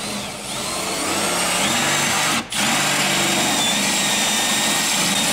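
Cordless drill drilling out steel rivets in a car door's inner panel, the rivets that hold the window regulator. It runs steadily, cuts off briefly about halfway through, then starts again.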